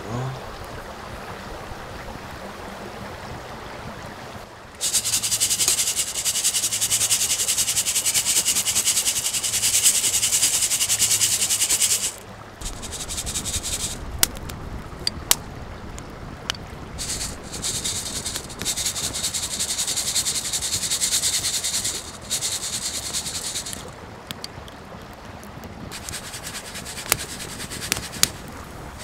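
A hand-held mesh roaster shaken over a campfire, its load of small grains rattling and swishing against the mesh. The sound starts about five seconds in, runs steadily for about seven seconds, then comes in shorter spells, with a few sharp crackles from the fire between them.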